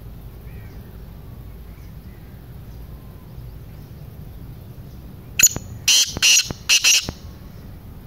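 Black francolin calling: a burst of about five loud, rapid notes lasting under two seconds, starting about five and a half seconds in, over faint chirps of other birds.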